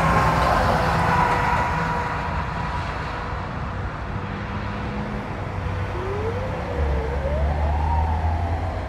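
Ambulance siren going by and moving off: a steady siren tone that drops slightly in pitch as the ambulance passes and fades, then about six seconds in a rising wail that slowly falls away. Road traffic rumbles underneath.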